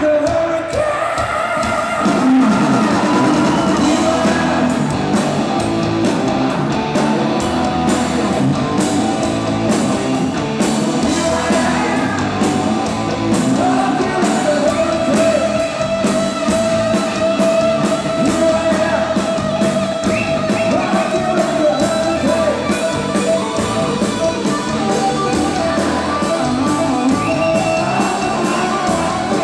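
Live hard-rock band playing loud: distorted electric guitars, a driving drum kit and a male lead singer.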